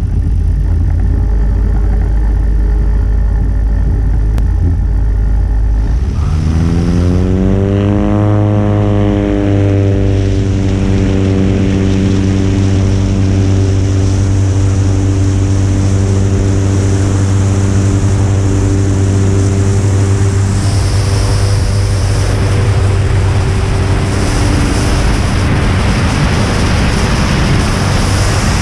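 Vivat L 13 motor glider's engine and propeller at low power, then opened up about six seconds in: the engine note climbs for a few seconds and then holds steady at full power through the takeoff run and liftoff. Air rushing over the wing-mounted microphone grows as the speed builds.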